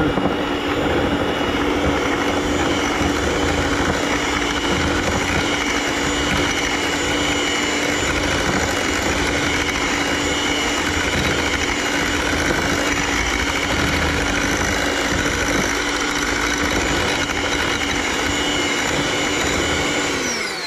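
Electric hand mixer running steadily at one speed, its beaters working through an egg batter. Near the end it is switched off and its motor whine falls in pitch as it winds down.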